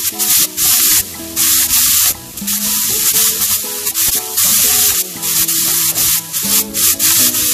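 Strips of beef sizzling and frying in oil in a pot, stirred with a wooden spoon, with short brighter bursts of hiss from time to time. A melody of background music runs underneath.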